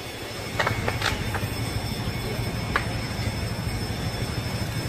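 Large building fire burning with a steady low rumble and sharp cracks and pops: a few close together about a second in, and another near three seconds.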